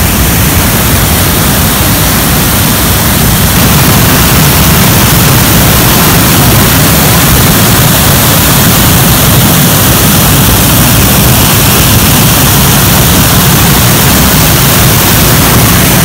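Waterfall heard from right beside where it falls: a loud, steady rushing of water crashing onto rock, growing a little louder about three and a half seconds in as the plunge pool is approached.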